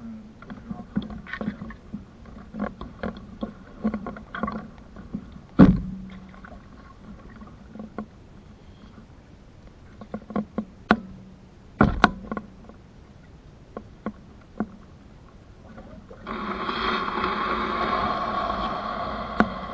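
Canoe paddling: a wooden paddle dipping and dripping, with light clicks and two sharp knocks against the canoe, about five and a half and twelve seconds in. A steady rushing noise starts about three seconds before the end and runs on.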